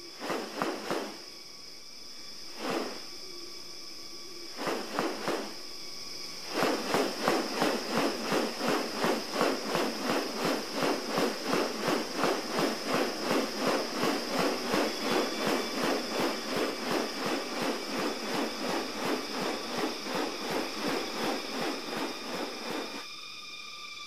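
Male riflebird displaying with its wings raised: dry rustling swishes of the wings, a few scattered at first, then a regular run of about three a second from about six seconds in until shortly before the end. A constant high insect drone sits underneath.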